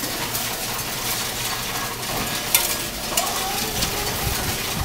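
Pennies being fed into a Coinstar coin-counting kiosk: a steady, dense rattle of coins running through the machine, with a couple of sharper clinks about halfway through.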